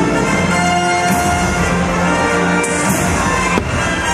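Orchestral music led by brass and trumpets, the soundtrack of the fireworks show, with a single sharp bang about three and a half seconds in.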